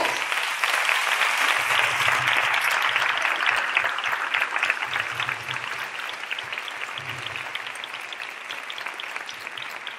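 Audience applauding, a dense round of clapping that starts suddenly and thins out and fades toward the end.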